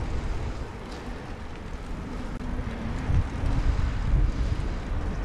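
Wind buffeting the microphone of a camera riding on a moving bicycle, a steady gusting rumble over the hiss of tyres rolling on an asphalt path.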